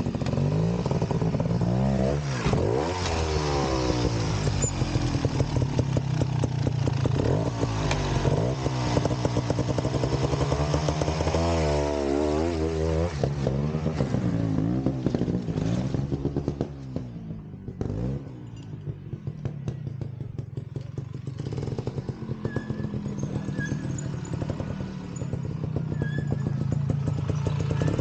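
Vintage trials motorcycle engine revving up and down over and over, its pitch rising and falling. It eases off and quietens about two-thirds of the way through, then picks up and runs steadily again.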